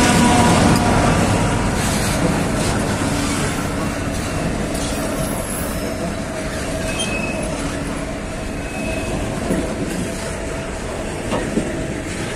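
Freight train wagons rolling past on the rails: a steady rumble, easing off a little over the first few seconds, with brief high wheel squeals and occasional sharp clicks.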